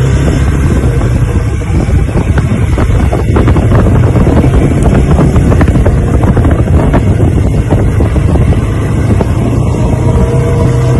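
Honda four-wheeler ATV engine running steadily under way, its tyres rattling over loose gravel, with wind buffeting the microphone.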